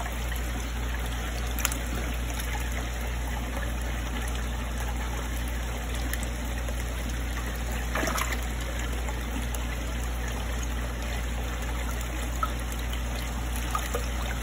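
Fish-tank water trickling steadily, with a low steady hum underneath and a few faint ticks.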